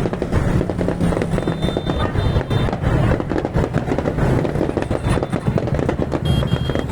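Music with a pitched bass line over dense, continuous crackling of fireworks.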